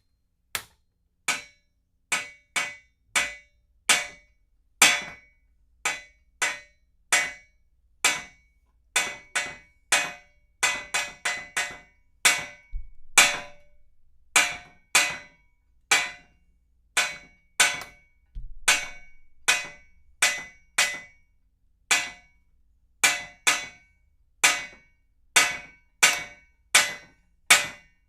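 A metal pipe struck repeatedly with a hammer: sharp metallic clanks, each with a short ring, coming one or two a second at an uneven pace and varying in force.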